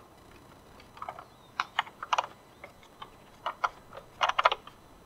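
Clicks and taps of a Thule UpRide bike carrier's plastic clamp and its hardware being handled and fitted onto the aluminium rail: irregular, with a quick cluster of clicks about four seconds in.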